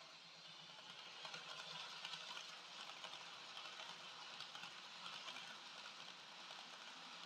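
Dapol N gauge HST model train running past on the track: a faint steady motor hum under the light ticking and clatter of its wheels on the rails, growing louder over the first couple of seconds as it comes close.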